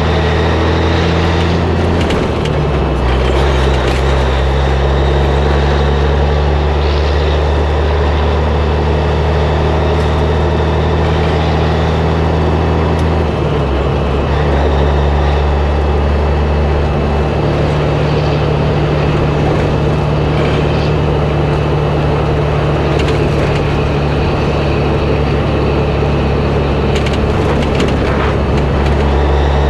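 1984 Peterbilt cabover tractor's diesel engine pulling an empty flatbed trailer, heard from the back of the trailer with road noise. The engine note holds steady and steps to a new pitch twice, about two seconds in and again about thirteen seconds in, with a few knocks and rattles from the trailer.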